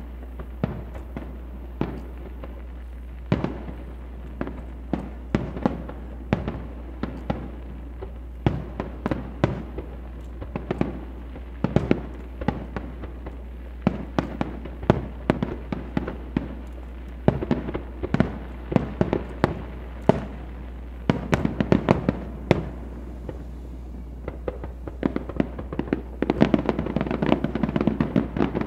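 Aerial firework shells bursting in quick succession: a steady string of sharp bangs that thickens near the end into a dense, rapid run of reports.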